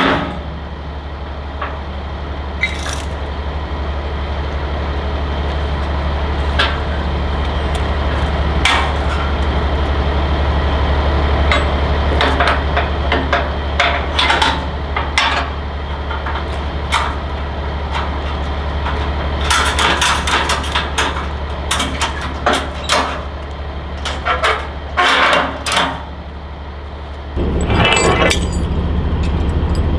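An engine idles steadily under repeated sharp metallic clanks and knocks, the sound of heavy metal gear being handled and struck. The knocks come most thickly in the second half.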